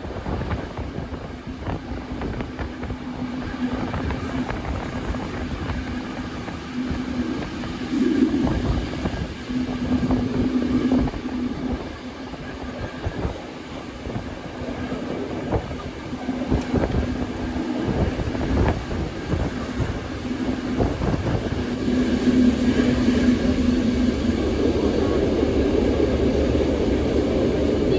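Train coaches running along the track: wheels clattering over rail joints in irregular clicks over a steady rumble, with a low hum that comes and goes. It grows louder near the end.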